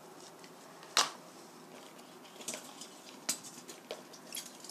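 Kitchen utensils handled on a table: one sharp clink about a second in, then a few lighter clinks and knocks, from a kitchen knife against a ceramic plate and a stainless-steel colander being handled.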